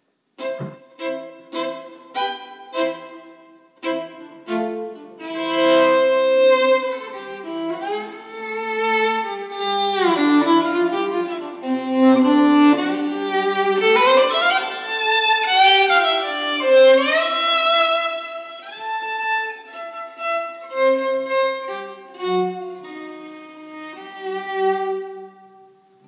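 Solo violin playing a short interlude: a few short, separate notes at first, then longer held notes with long slides down and back up in pitch through the middle, ending on separate notes again.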